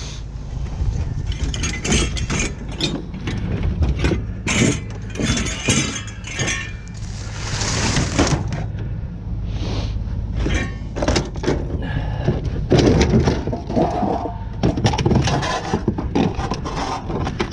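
Repeated knocks, clinks and scrapes of metal scrap and trailer rails being handled while the load is strapped down with bungee cords, with a longer scrape about eight seconds in, over a steady low rumble.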